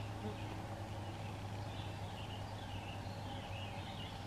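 Outdoor ambience: a few faint, short, wavering bird calls over a steady low hum.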